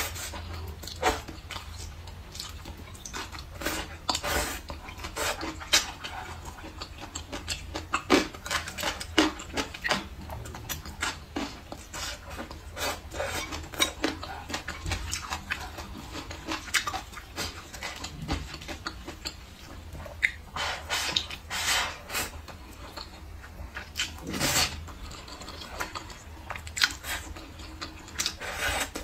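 Close-up eating sounds: chewing and wet mouth sounds, with chopsticks clicking against a ceramic bowl. A few longer slurps as glass noodles are sucked in come in the second half and near the end.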